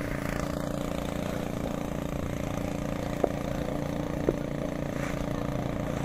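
A steady machine drone with a constant low hum, and two faint short ticks about a second apart midway through.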